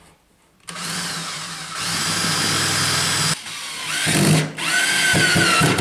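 Cordless drill running in two long bursts, its motor pitch rising in each, as it bores or drives into a plywood panel.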